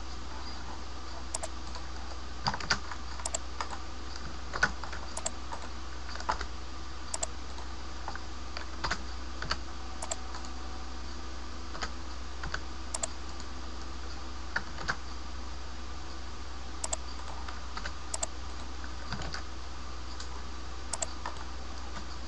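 Scattered clicks of a computer keyboard and mouse, about one or two a second, over a steady low hum.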